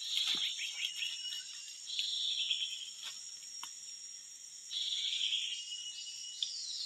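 Forest insects calling in a steady high-pitched chorus, with louder buzzing bursts swelling three times, every couple of seconds. A couple of faint clicks about three seconds in.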